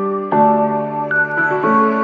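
Background music: slow, sustained chords that change twice.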